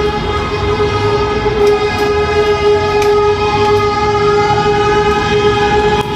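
A truck air horn held in one long, steady blast over traffic rumble, with fainter horn tones sliding up and down across it.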